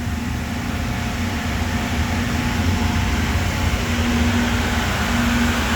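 Steady hum and whoosh of running workshop machinery, with a faint low tone coming in about four seconds in.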